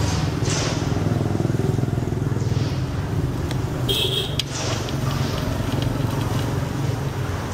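Steady low rumble of motorbike engines running close by on the street. A short high-pitched tone sounds about four seconds in, and a few light metallic ticks come from spokes being threaded through a bicycle rim.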